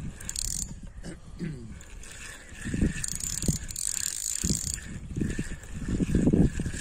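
Spinning reel cranked in while playing a hooked carp: the reel's gears click and whir, with short knocks from handling the rod.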